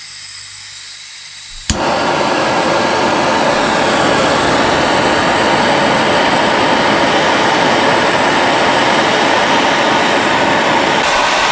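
A workshop power tool running with a steady, loud rushing noise. It starts with a sharp click about two seconds in, after a quieter hiss.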